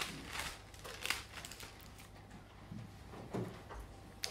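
Thin Bible pages rustling as they are turned by hand: a few quick, papery swishes in the first second and a half, then fainter handling sounds.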